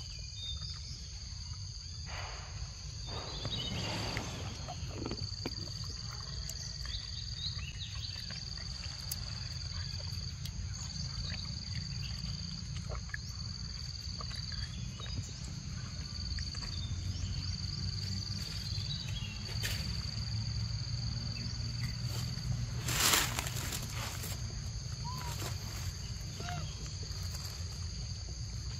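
Insects trilling in a high chorus that pulses on and off in short phrases, over a steady low rumble. A sudden loud rustling noise comes about two-thirds of the way through.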